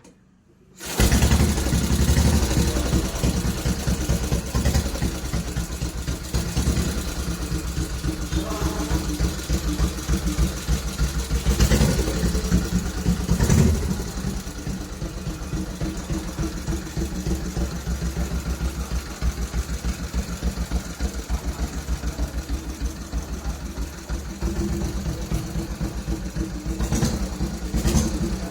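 Classic Norton motorcycle engine, starting suddenly about a second in and running at a steady idle, with two brief throttle blips near the middle.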